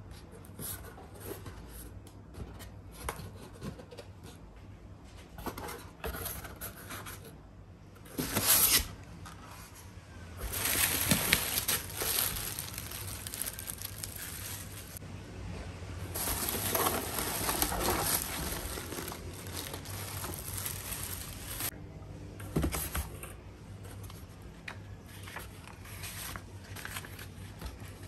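Packaging of a new blender being unwrapped: plastic and paper crinkling and rustling in irregular bursts, loudest in a few longer stretches around the middle, with occasional light handling knocks.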